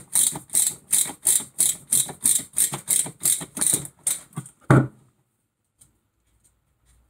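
Hand socket ratchet clicking in even strokes, about three clicks a second, as it turns a hub bolt. The clicking stops about four and a half seconds in, followed by a single loud knock.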